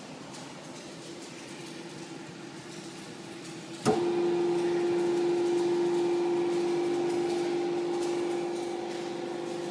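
A sharp click about four seconds in, then the hydraulic press's pump motor starts and runs with a steady hum.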